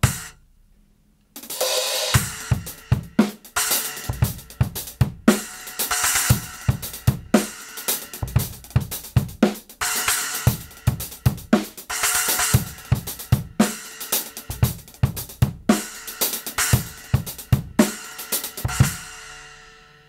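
Kingdo Artist Classic Raw Bell 8-inch splash cymbal struck once, then played within a drum-kit groove with kick and snare, the splash crashing on the accents. The last crash rings out and fades near the end.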